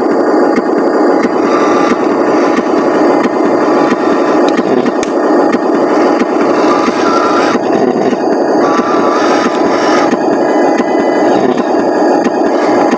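Radio-controlled Huina 1501 logging truck driving over rough ground: a steady grinding scrape of its drivetrain and tyres on dirt, with a faint motor whine that rises and falls.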